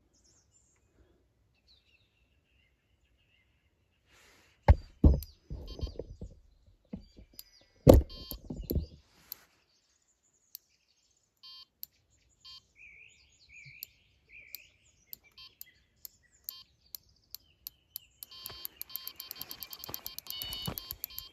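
Electronic carp bite alarm sounding: single beeps spaced seconds apart from about halfway, quickening into a fast continuous run of beeps near the end as a fish, here a catfish, takes line. A few heavy thumps come earlier and are the loudest sounds.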